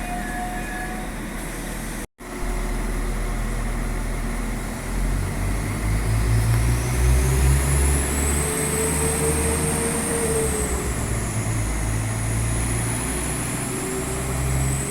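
A train running through the station: a low rumble builds about five seconds in, with a high whine that rises and falls in pitch as it passes.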